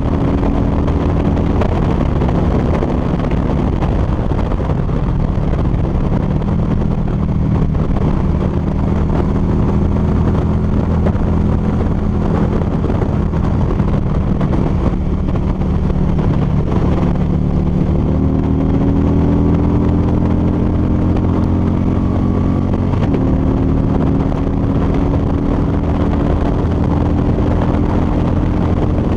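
Harley-Davidson V-twin motorcycle engine running steadily at highway cruising speed, with wind rushing past. The engine note shifts in pitch a few times as the throttle changes.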